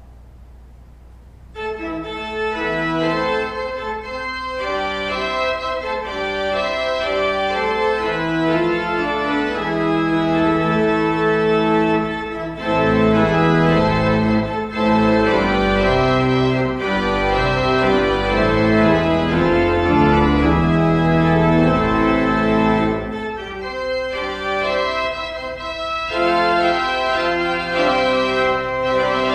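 Church organ playing the postlude after the dismissal: sustained chords that begin about a second and a half in, with deep bass notes joining near the middle and dropping out again about three-quarters of the way through.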